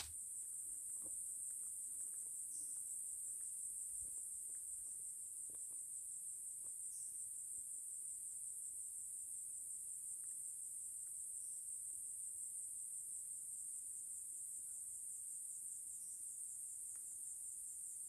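Steady high-pitched chorus of insects in the grass, one unbroken shrill drone, with a few faint ticks from handling the tent poles.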